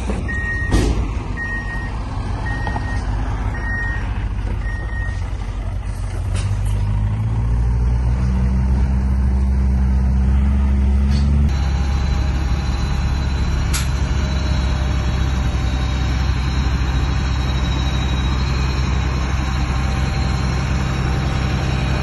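Diesel engines of heavy earthmoving machinery running, with a reversing alarm beeping five times at about one beep a second near the start and a sharp knock about a second in. About six to eight seconds in, an engine revs up and holds at a higher pitch.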